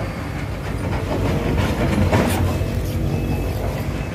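Heavy diesel machinery, an excavator or the truck it is loading, running steadily with a low rumble, and a sharp clank about two seconds in.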